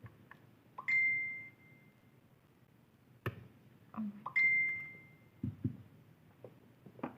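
Two identical short electronic dings about three and a half seconds apart, each a single high tone fading over about half a second, among light clicks and taps.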